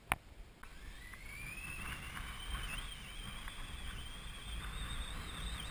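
Abseil rope running fast through a descender during a rapid free-hanging descent: a hissing whine that climbs steadily in pitch for about five seconds as the speed builds, over low wind rumble on the microphone. A single sharp click comes just before it.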